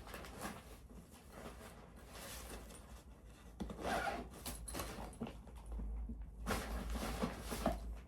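Rustling and zipping as a bag is packed, in irregular scraping bursts, busiest about four seconds in and again near the end.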